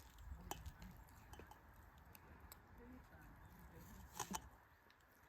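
Near silence with a few faint, light clicks, two of them close together near the end.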